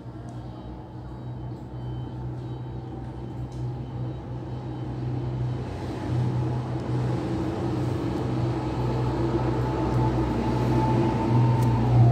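A motor vehicle's engine running, a low steady hum that grows louder toward the end.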